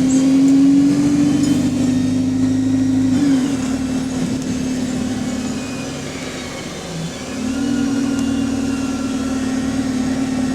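Double-decker bus engine and Voith automatic gearbox heard from inside the bus, pulling under load. The engine note changes gear about three seconds in, eases off, then picks up and pulls again from about seven seconds in.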